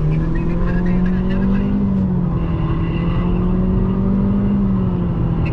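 Car engine and road noise heard from inside the cabin while driving on a highway. The engine holds a steady drone whose pitch edges up and eases back twice.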